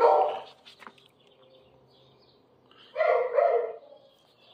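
A dog barking: one bark at the start, then two quick barks about three seconds in.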